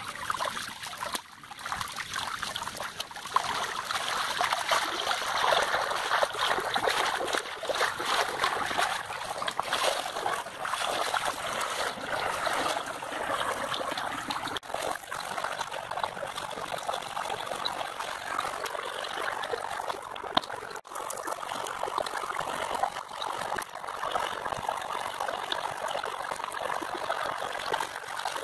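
Water running and trickling steadily, like a small stream.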